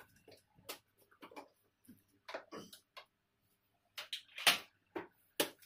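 Irregular clicks, rustles and knocks of gaming-chair parts being handled: a paper instruction sheet being folded, then the plastic five-star base and casters knocking. The loudest knock comes about four and a half seconds in.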